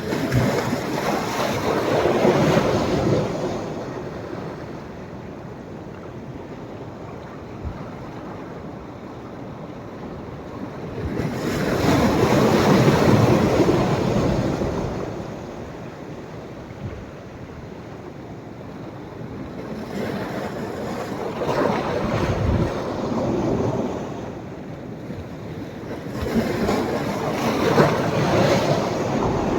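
Sea waves breaking and washing up a sandy beach on a rising tide: the surf swells and fades in four surges, about every eight to ten seconds.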